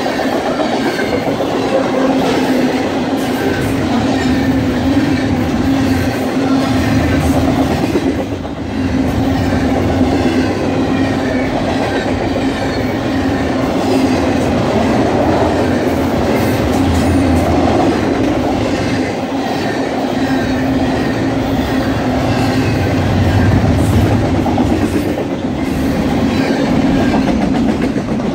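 Double-stack intermodal container cars of a BNSF freight train rolling past close by: a steady, loud rumble of steel wheels on the rails with a continuous hum.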